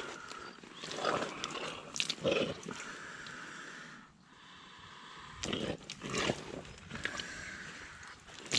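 Rubber boot squelching and sucking in thick, sticky clay mud as the foot shifts and presses in, in a series of irregular bursts with a quieter gap about halfway. Drawn-out rubbery squeaks from the rubber rain pants and boots rubbing come in between.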